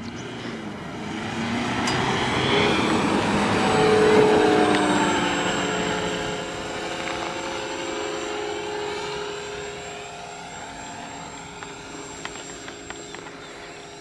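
The four small propeller motors of a homemade four-motor RC airplane whining and buzzing as it takes off and flies. The sound swells to its loudest about four seconds in, then slowly fades.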